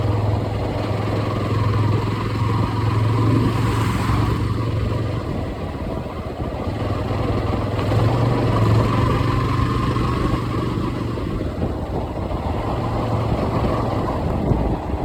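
Jawa 42 motorcycle's single-cylinder engine running, its low note easing off and picking up again a few times.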